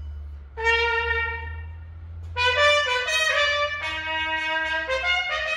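Trumpet played: one held note starting about half a second in, then a phrase of several shorter notes at changing pitches.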